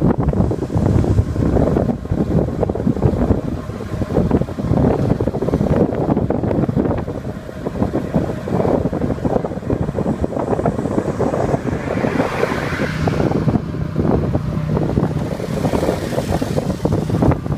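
Wind buffeting the microphone and road rumble from riding in an open tuk-tuk at speed. Near the end a passing motorbike adds a rising hiss and a low engine hum.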